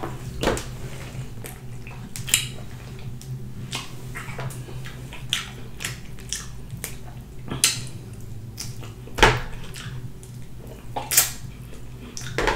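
Close-up wet chewing and lip-smacking while eating rotisserie chicken by hand: irregular sharp clicks and smacks, two louder ones near the end, over a steady low hum.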